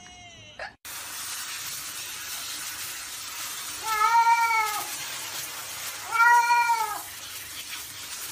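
A cat meows twice, two long drawn-out meows a couple of seconds apart, while being showered. Under the meows runs the steady hiss of a handheld shower head spraying water.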